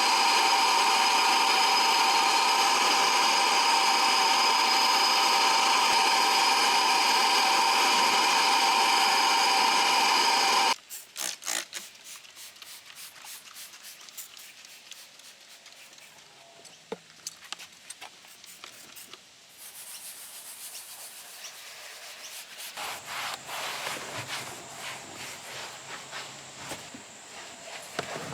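A small electric tool motor runs steadily with a high whine for about eleven seconds, then stops abruptly. It gives way to quieter hand rubbing and scrubbing on a surface, with light clicks and taps.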